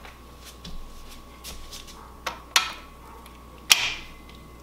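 A handful of sharp metal clicks and knocks, the loudest about two and a half and three and a half seconds in, from handling a bare BMW N54 engine block on its engine stand and fitting a torque wrench and socket onto a bedplate bolt.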